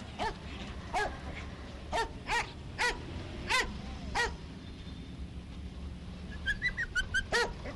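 A dog barking, single barks spaced about half a second to a second apart, then a quick run of higher, shorter yips near the end, over a steady low hum.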